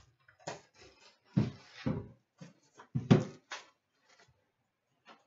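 An Upper Deck Black Diamond hockey card tin being unwrapped and opened by hand: plastic wrap crinkling and the metal tin and its lid knocking against a glass countertop, a string of clicks and clatters with the loudest knocks about three seconds in.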